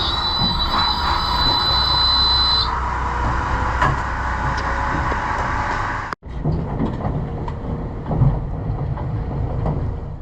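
Yacht's diesel engine running just after starting, with a steady high-pitched tone over it that stops a few seconds in.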